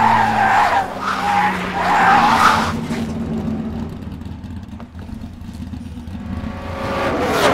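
Race car tires skidding and squealing as a film sound effect, over a steady low hum. The skid dies away about three seconds in, leaving a quieter rumble that swells again near the end.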